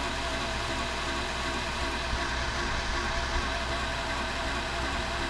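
KMG belt grinder running steadily with a 320-grit silicon carbide belt: a constant low motor hum under a belt hiss. The belt is tracking side to side about 3/16 inch, which the owner puts down to a crooked-cut belt, not the machine.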